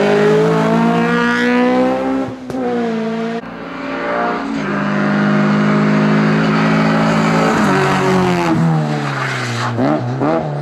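Race car engine at full throttle, revs climbing with a gear change about two seconds in. After a cut, an Opel Corsa B hillclimb car holds a high steady engine note, then brakes for a bend with falling revs and quick throttle blips on the downshifts near the end.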